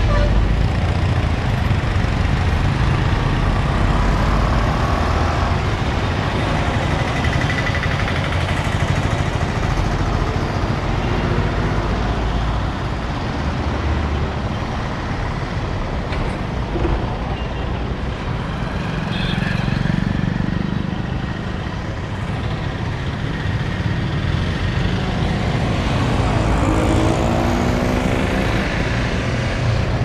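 Town street traffic: vehicle engines running and passing, with a steady low rumble. One engine swells and passes close by near the end.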